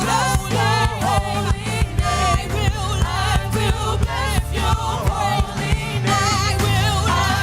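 Live gospel worship music: voices singing with vibrato over a bass line and a regular drum beat.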